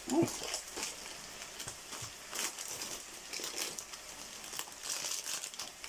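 Plastic bread bag crinkling in short, irregular rustles as a loaf of sliced toast bread is pulled out of it.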